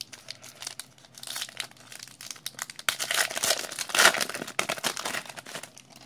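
Trading card pack's foil wrapper crinkling and tearing open in the hands, loudest about four seconds in as it is ripped apart.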